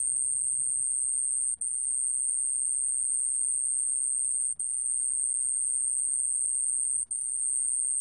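좀방울벌레 cricket singing a continuous, high-pitched, even trill, recorded at 29 °C, with brief breaks about every two and a half to three seconds.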